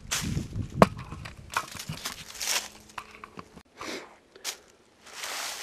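Handling noise from a handheld camera: irregular rustling and crunching against the microphone, with one sharp click about a second in.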